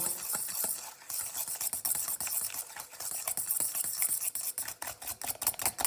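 Egg, sugar and oil being beaten by hand in a stainless steel bowl: the utensil clicks rapidly and evenly against the metal.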